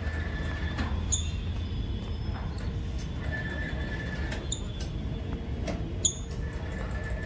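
Outdoor ambience: a steady low rumble with three short high chirps, about a second, four and a half and six seconds in, the last with a sharp click.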